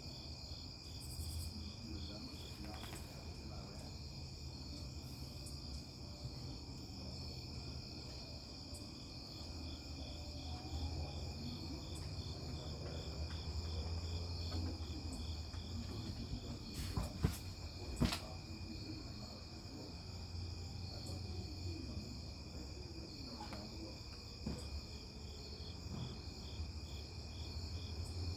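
Night chorus of crickets and other insects: a steady high-pitched trilling with an evenly pulsing band, over a low rumble. Two sharp clicks a little past the middle.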